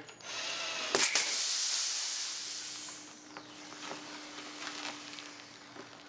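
Cordless drill boring through a small pneumatic tire's tread, then a loud hiss of air escaping through the fresh hole, dropping in pitch and fading over about two seconds as the tire deflates. The hiss sounds to the driller as if an inner tube is inside.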